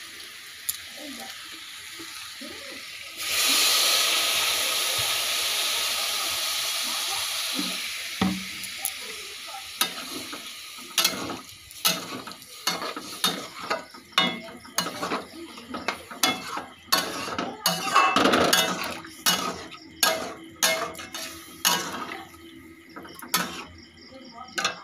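Water poured into a hot steel kadai of frying vegetable curry sizzles loudly about three seconds in, a sudden hiss that fades over several seconds. Then a metal ladle scrapes and knocks against the steel pan about twice a second as the curry is stirred. Crickets chirp faintly near the end.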